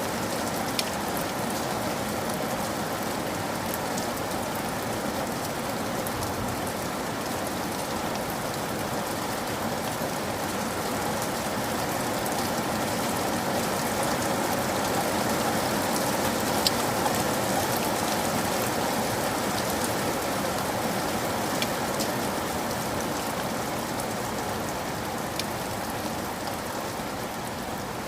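Steady rain falling, an even hiss with scattered sharper drop ticks, swelling slightly in the middle.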